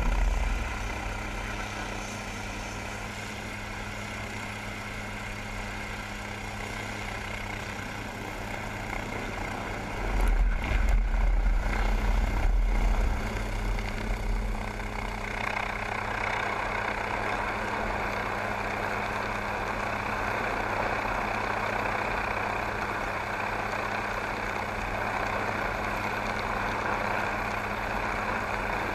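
MQ-8B Fire Scout unmanned helicopter's turboshaft engine and main rotor running with a steady hum as it lifts off the deck into a hover. A heavy low rumble comes about ten to thirteen seconds in, and the rush of the rotor grows louder from about fifteen seconds on.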